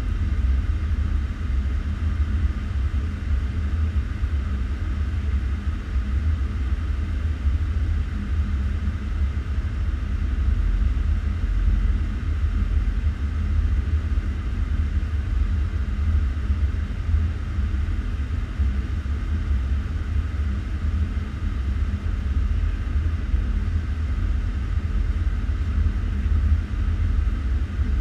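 Steady low rumble of a Boeing 757 in flight on approach, heard inside the cockpit: airflow and engine noise without change.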